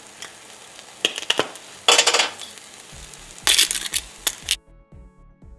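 Eggs and mushrooms sizzling in a frying pan, with two short grinding bursts from a garlic-and-sea-salt spice grinder twisted over the pan and a few light clicks. Music with a steady beat comes in about halfway, and the frying sound cuts off near the end.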